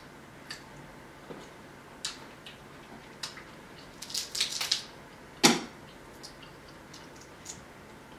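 Crab-leg shells being cracked and snapped apart by hand: scattered clicks and crackles, a crackling run about four seconds in, then one sharp, loud snap about a second later.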